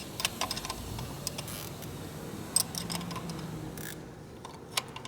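Scattered light clicks and taps from small parts being handled during hand work on a motorcycle, irregular rather than a steady rhythm.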